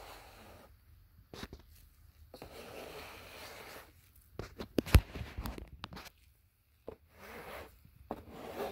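Cardboard model-kit box being handled and turned, with fingers rubbing and scraping over the cardboard in short rustling stretches and a sharp knock about five seconds in.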